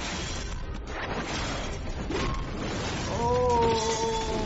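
Film fight-scene soundtrack: dramatic background score mixed with crashing impacts. About three seconds in, a held note with a slight downward slide rises above the mix.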